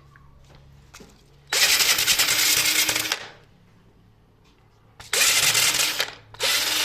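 Power drill spinning a velcro-backed rubber sanding disc and grinding at plaster. It runs in three bursts: two of about one to one and a half seconds, then a third that starts near the end.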